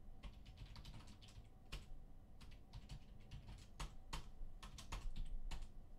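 Typing on a computer keyboard: light, irregular key clicks.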